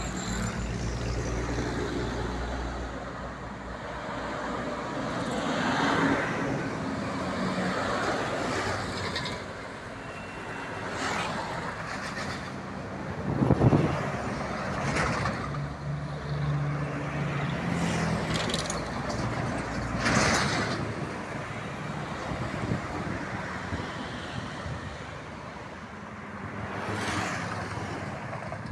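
Highway traffic with buses, trucks and cars passing one after another, each swelling and fading as it goes by. There is a short, sharp loud burst roughly halfway through.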